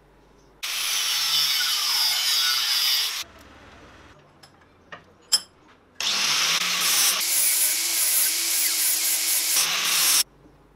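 Angle grinder with an abrasive cutoff disc cutting through a steel bolt: two loud stretches of grinding hiss, each starting and stopping abruptly, with a quieter gap of a few sharp clicks between them.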